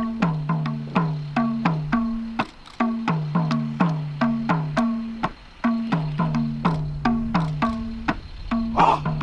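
Drum music accompanying a khukuri dance: a fast run of sharp hand-drum strokes, about three to four a second, each with a low note that drops in pitch, in a pattern that pauses briefly about every three seconds. A short noisy burst comes near the end.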